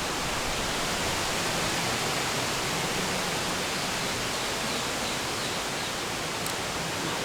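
A steady, even hiss of noise.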